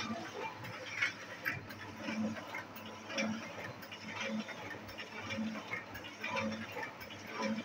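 Hamada 602 offset printing press running, with a rhythmic clatter of its mechanism: a dull thud with a lighter clicking repeating about once a second.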